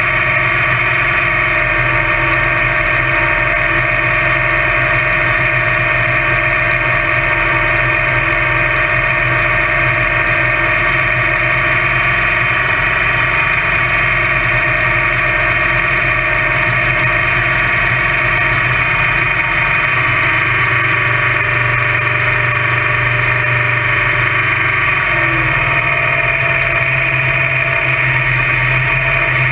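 Top Alcohol Dragster's engine idling steadily, heard close up from a camera mounted on the car.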